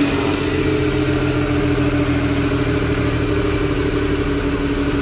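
Carbureted engine of a Scrum mini truck idling steadily during an idle-mixture adjustment on the carburetor. It runs evenly and smoothly, the idle now set after a hard-starting, hunting-idle fault.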